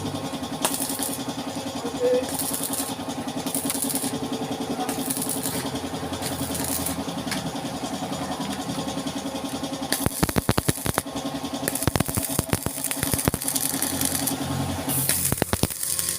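An engine idling steadily. From about ten seconds in, a run of sharp clicks and knocks sounds over it.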